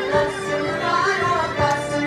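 Greek folk song with a singing voice and instruments, played for the dancing at a steady, lively beat.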